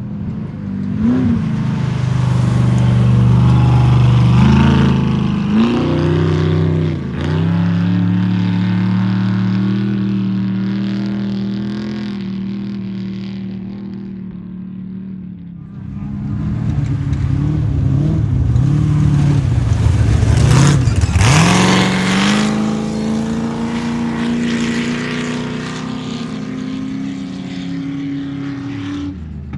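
Two desert off-road race vehicles go by one after the other at full throttle, engines revving with shifts in pitch. The second comes closest and passes about two-thirds of the way in, its pitch dropping as it goes by, then runs on at a steady climbing pitch as it pulls away.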